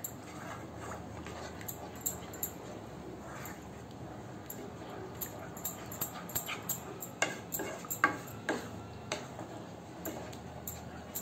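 Spatula stirring a thick gram-flour gravy in a pan: wet squelching and scraping with many small clicks and pops, busier about seven seconds in, over a steady low hum.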